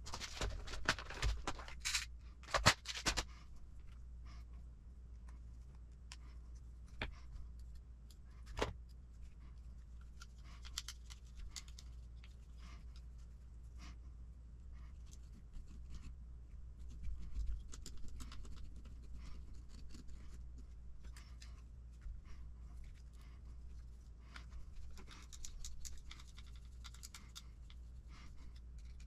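Small clicks and scratches of hardware being handled, with several sharp clicks in the first few seconds, then faint ticking and scraping as a hex driver turns a small screw into a fiberglass plate.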